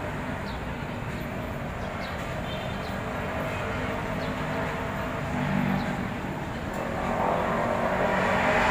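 Steady outdoor background noise, a low rumble with a hiss over it, swelling louder over the last couple of seconds.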